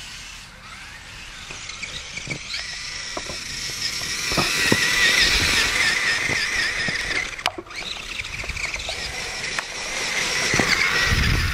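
Electric motor and geared drivetrain of a radio-controlled crawler whining as it drives up a snowy slope, the pitch wavering up and down. The whine drops out briefly a little past halfway and swells again near the end.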